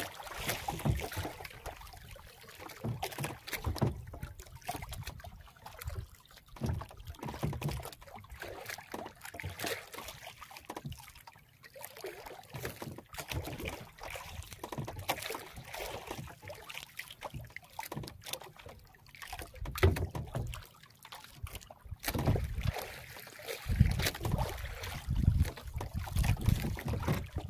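Sea water splashing and lapping irregularly against the hull of a small wooden outrigger boat, with wind on the microphone and a few heavier low thumps toward the end.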